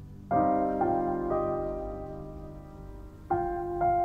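Slow background piano music: a chord struck about a third of a second in, with a few more notes added over the next second, left to ring and fade before another chord near the end.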